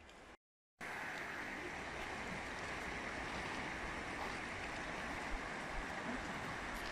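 Steady rushing of a river, starting just under a second in after a brief silence.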